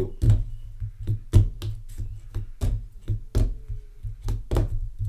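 Fingerboard being flicked through kickflips and tricks on a desk mat: a quick, irregular run of knocks and clacks as the small board pops, flips and lands on its wheels.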